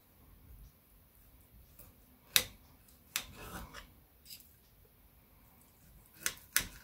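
Knife and fork cutting a fried pork cutlet on a ceramic plate: a few sharp clicks of the cutlery against the plate, the loudest about two and a half seconds in, with soft scraping in between.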